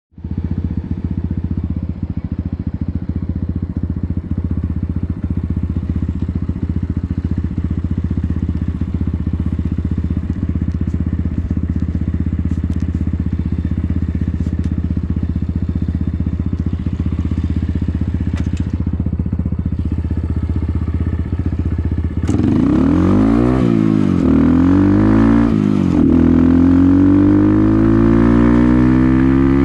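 RFZ motorcycle engine idling steadily, then about 22 seconds in it is revved twice, pitch rising and falling, and pulls away, its pitch climbing as it accelerates.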